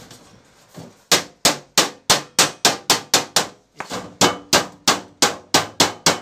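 A hammer striking the folded seam along the edge of a sheet-metal cooler tray, about three blows a second with a short pause about halfway, knocking the lock seam closed.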